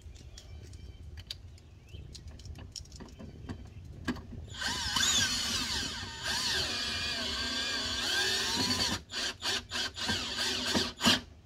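Cordless drill driving in the bolts of a Cummins ISX crankcase filter cover. The motor runs for a few seconds with its pitch rising and falling as the trigger is eased, then gives a series of short trigger bursts to snug the bolts. Light clicks of handling come before it.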